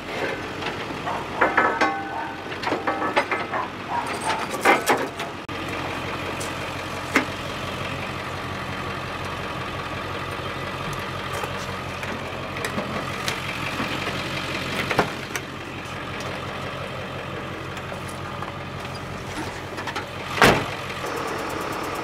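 Pickup truck engine idling steadily. Clattering knocks of trailer ramps being set down during the first five seconds or so, and a single sharp knock near the end.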